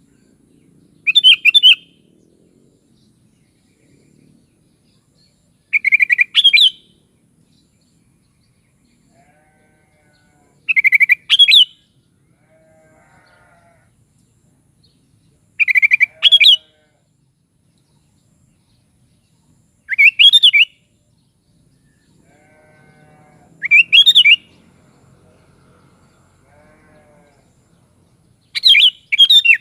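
Sooty-headed bulbul (kutilang) singing: seven short, loud, bubbling phrases, one every four to five seconds. Fainter, lower calls come between the phrases.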